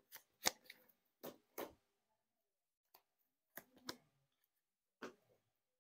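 Faint, scattered short taps and clicks, about nine in all, of Magic: The Gathering cards being handled and set down on a playmat, the sharpest about half a second in.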